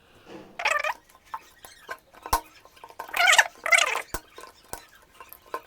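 A cat meowing three times, short calls that bend up and down in pitch. Between them come a few sharp clicks as the plastic top cover of a motorcycle dry-cell battery is worked off.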